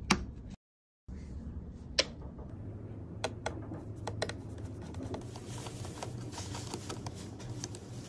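Sharp clicks of M.2 NVMe SSDs being handled and seated on a motherboard, then a small screwdriver turning the tiny M.2 retaining screw, making a dense run of fine ticks.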